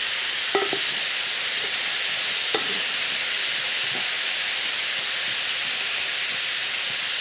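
Pork fillets, celery and kumquats sizzling steadily in sunflower oil in a hot stainless steel frying pan, stirred with a wooden spoon, with a few soft knocks of the spoon.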